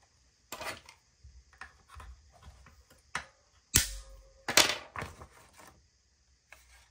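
Paper being worked through a planner hole punch: scattered clicks and paper handling, with a sharp knock about four seconds in and another just after it.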